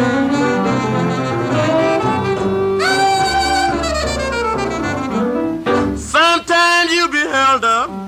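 1948 rhythm and blues record: a saxophone carries the melody over the band in an instrumental passage, with held notes in the middle and shorter, bending phrases near the end.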